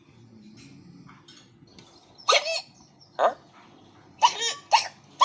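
Cartoon character hiccuping: a run of loud, short 'hic' sounds, roughly a second apart, starting about two seconds in, with the last ones coming closer together.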